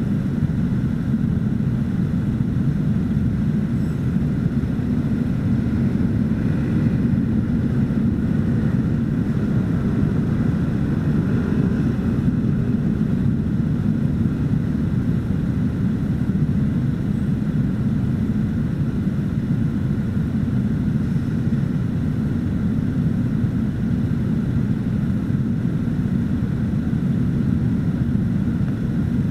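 Steady low rumble of many scooter engines idling together, heard through a camera mounted on a stopped scooter.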